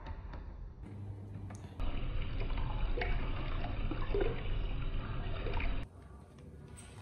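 Water running from a tap into a bathroom sink and splashing over a hand, for about four seconds in the middle. Before and after it come quieter stretches with a few light knocks.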